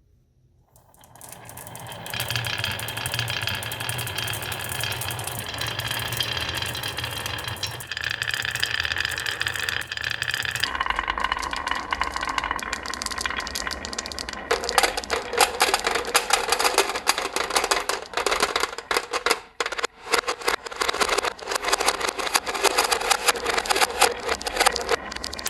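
Marbles rolling along a wooden marble run: a steady rolling rumble at first, then from about halfway through a dense, fast clatter of marbles clicking against the track and each other.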